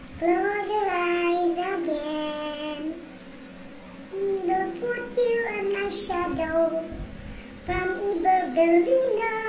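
A high voice singing without accompaniment, in three long phrases of held, sliding notes, with a short click about six seconds in.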